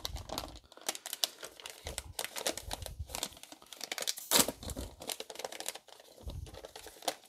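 Foil-lined plastic paydirt bag crinkling and tearing as it is pulled open and worked to empty it, an irregular run of sharp crackles with the loudest a little past four seconds in.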